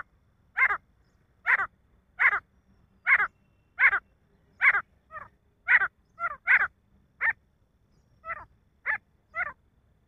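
Male grey francolin calling: a loud, harsh call repeated a little more than once a second, with shorter, weaker notes slipped in around the middle and near the end.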